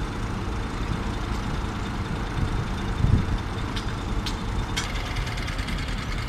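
Steady drone of engine-driven construction machinery running, with a few light clicks about a second in and again near the three-quarter mark.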